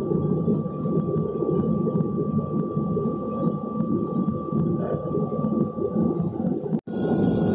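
Boeing 737-800 cabin noise on the ground: a steady rumble with a constant high whine. It breaks off abruptly near the end and resumes with the whine a little higher.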